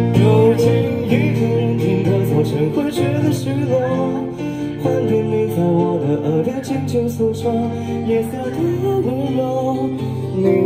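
Street band playing a song through small portable amplifiers: guitar and keyboard with a singer on microphone.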